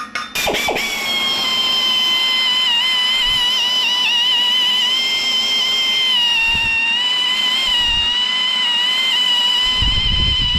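Angle grinder starting up about half a second in and running with a steady high whine whose pitch wavers slightly as it bears on the steel, with a few dull low thumps near the end.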